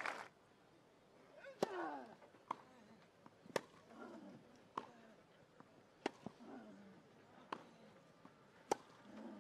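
A tennis rally on a grass court: crisp racket strikes on the ball about once a second, some louder and some fainter, with a player's short grunt falling in pitch after several of the shots.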